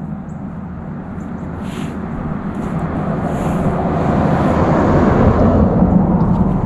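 Engine hum of a passing vehicle, growing louder to a peak about five to six seconds in and then easing off.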